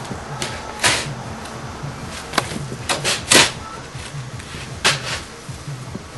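A long-handled shovel chopping and scraping into snow: about five short, sharp scrapes at uneven intervals, the loudest about three and a half seconds in.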